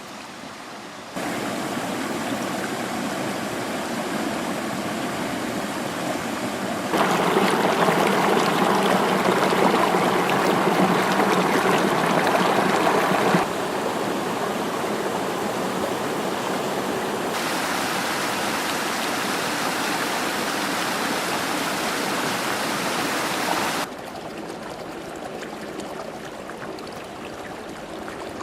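Rushing water of a geothermally heated river and waterfall: a steady wash of water noise that jumps abruptly in level several times, loudest for a stretch in the middle.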